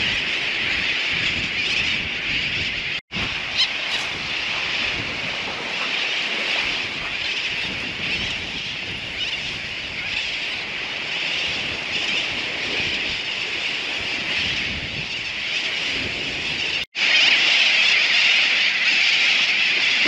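Continuous din of a large seabird colony, many birds calling at once in a dense, high chatter. It cuts out for an instant twice, about three seconds in and again near the end.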